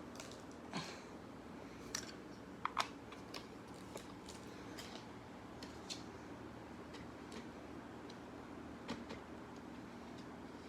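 Scattered sharp clicks and taps, the loudest a quick pair just under three seconds in, over a faint steady low hum.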